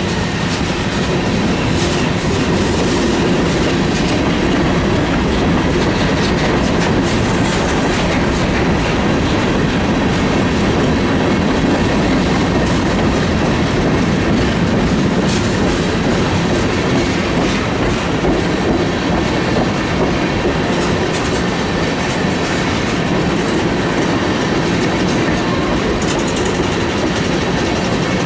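Train cars rolling steadily past on the mountain grade, an even rumble of steel wheels on rail with clicking over the joints and faint wheel squeal now and then.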